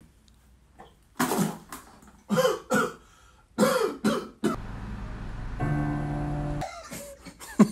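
Music: a run of short, sharp vocal-like hits, five in about three seconds, then a held chord of steady tones a little past halfway.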